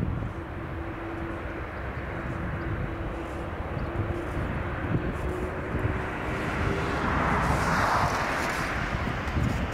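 Airbus A330-200's General Electric CF6 turbofans at takeoff thrust during the takeoff roll: a steady jet rumble and hiss with a faint tone that rises slightly, the hiss growing stronger about eight seconds in.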